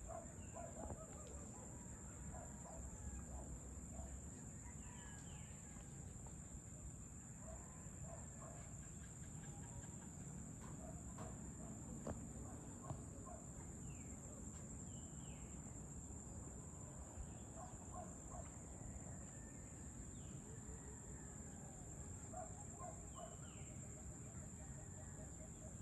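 Evening outdoor ambience: a steady high-pitched insect drone runs throughout, with birds calling now and then in short chirps and brief rising notes.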